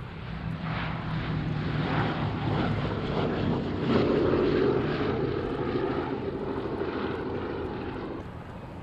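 The four radial piston engines of a B-17G Flying Fortress drone on a low flypast. The sound swells to its loudest about four seconds in, then fades as the bomber moves away.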